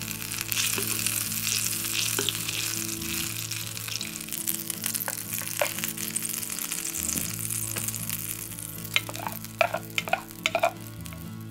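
Butter and grated garlic sizzling in a stainless steel Sierra cup over a small gas stove's flame, stirred with a wooden spoon, with a few light knocks near the end.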